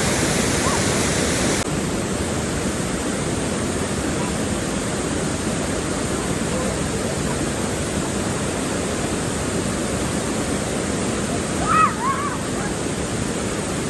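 Waterfall pouring, a steady rushing roar of falling water that turns a little duller about a second and a half in. Near the end there is a brief, higher pitched call-like sound over it.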